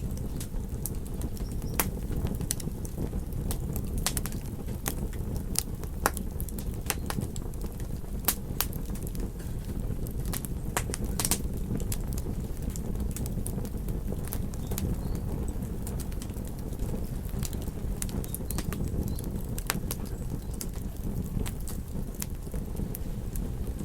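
Wood fire burning in a fireplace: a steady low rumble of flame with sharp crackles and pops scattered irregularly, several a second.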